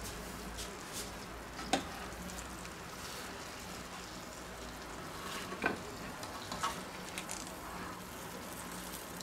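Fat and juices sizzling steadily in the hot baking tray of a Tefal OptiGrill, with a few light knocks of kitchen tongs against the tray as the chicken legs are lifted out.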